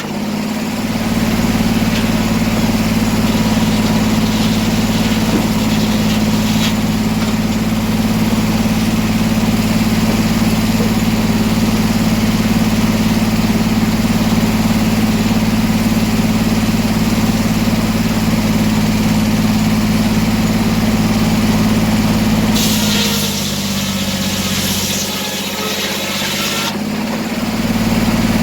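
Sawmill engine running steadily at speed. About 23 seconds in, its speed and level drop for a few seconds while a hiss sounds, then it comes back up.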